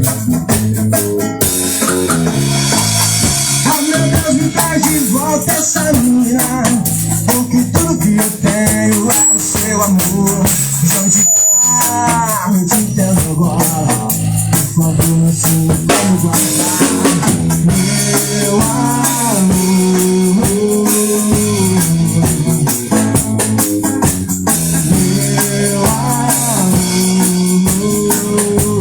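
Live band playing a steady reggae groove: acoustic guitar, bass guitar and drum kit with shaker-type hand percussion.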